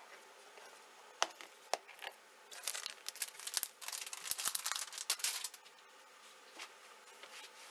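Two sharp plastic clicks about half a second apart as the lid of a plastic onigiri case is snapped shut, then a few seconds of crinkly rustling and handling noise that stops about two seconds before the end.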